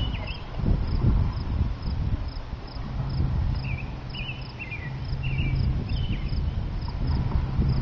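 An insect chirping in an even rhythm a few times a second, with short bird chirps now and then. A low steady hum comes in about three seconds in.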